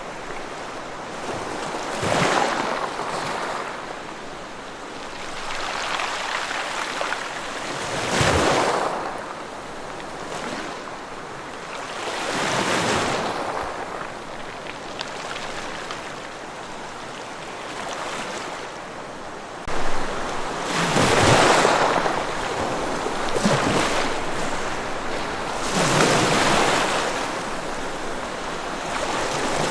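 Sea waves breaking and washing up on a shore, surging in every few seconds. About two-thirds of the way in, a low rumble suddenly joins and the surges grow louder.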